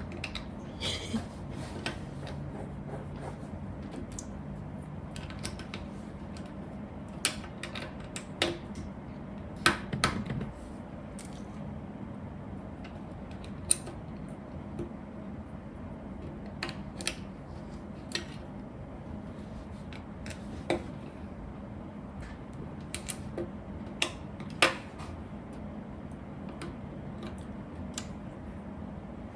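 Plastic Lego pieces clicking and tapping now and then as they are handled and snapped together. The clicks are irregular and sharp, over a steady low hum.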